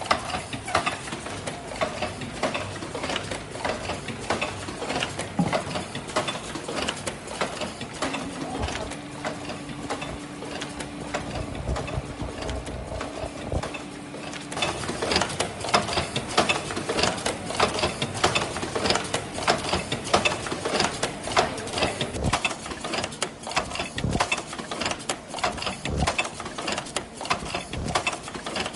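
Automatic disposable medical mask production machine running: a continuous, rapid mechanical clatter of many small clicks from its moving parts as it forms the pleated masks. A steady hum joins for several seconds partway through.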